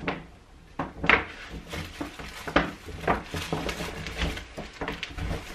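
A string of irregular knocks, taps and rustles from packs of bedding being rummaged through and picked up by hand.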